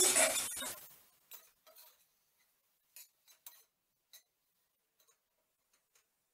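Steel ladle scraping and clinking against a stainless steel pan while stirring dry soya chunks: a brief scrape in the first second, then a handful of scattered light clicks.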